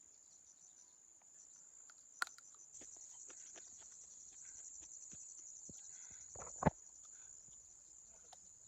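Insects trilling steadily in the field, a high, rapid pulsing chirr. Scattered clicks and rustles from handling the cucumber plants break through it: a sharp snap about two seconds in, and a louder crackling rustle about six and a half seconds in.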